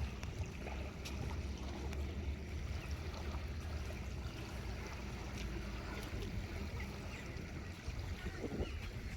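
Outdoor waterside ambience: an uneven low rumble of wind on the microphone over a steady wash of water-like noise, with a few faint, short high chirps.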